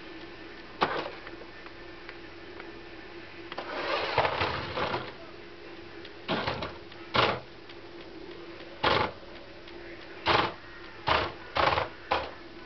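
Small electric motor and gearbox of a battery-powered 1:16 XQ Porsche Cayenne radio-controlled model whirring in short bursts as it is driven back and forth, with one longer run about four seconds in and several quick bursts near the end.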